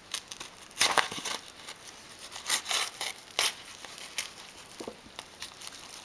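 Yellow padded mailer envelope crinkling and crackling as it is handled and opened by hand, in irregular bursts with a few sharper, louder crackles.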